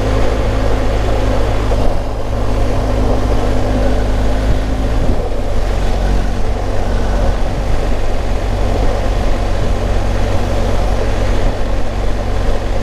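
BMW R1250 GS Rallye's boxer-twin engine running at a steady road cruise, over a steady rush of wind and road noise. About five seconds in, the engine note shifts.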